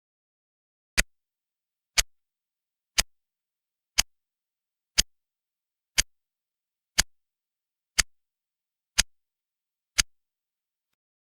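Countdown timer sound effect: ten short, sharp clock-like ticks, one each second.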